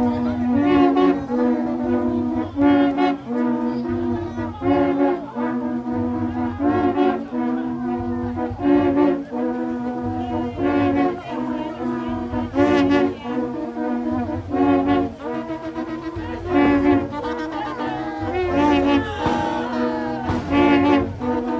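Brass band music: short horn phrases repeated over and over above a steady low beat.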